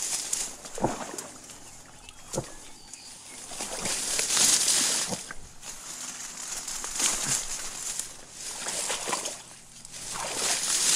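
Sloshing steps through shallow marsh water with dull thuds underfoot, and repeated swells of dry reeds rustling as they are pushed aside.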